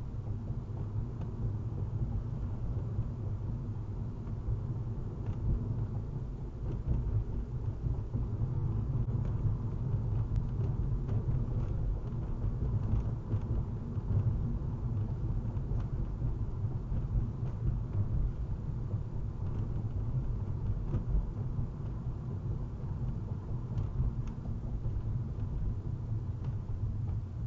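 Car driving at about 30 mph, heard from inside the cabin: a steady low rumble of road and engine noise.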